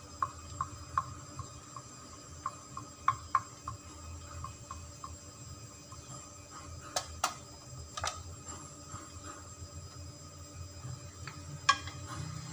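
Wooden spatula tapping and scraping in a non-stick frying pan as a thin egg layer cooks, in light, irregular taps. A sharper metallic clink comes near the end as a metal spoon touches the pan.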